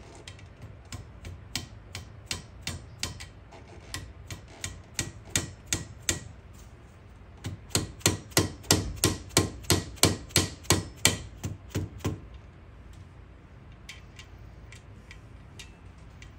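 A steady run of sharp taps, about three a second, from a dead blow hammer tapping parts on a Kawasaki KFX 400 cylinder head to seat them. The taps grow much louder from about halfway through, stop about three-quarters of the way in, and a few faint taps come near the end.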